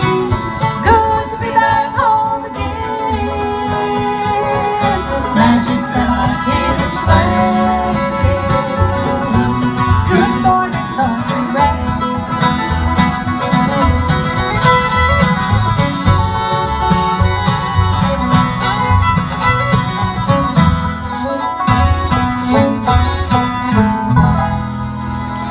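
Bluegrass band playing live with fiddle, mandolin, upright bass, acoustic guitar and five-string banjo, a woman singing the lead, over a steady bass beat.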